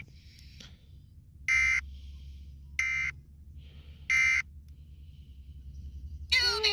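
Three short Emergency Alert System end-of-message data bursts (the SAME digital 'NNNN' signal), each about a third of a second long and about a second and a quarter apart, closing a required monthly test. A faint low hum runs beneath them, and singing starts near the end.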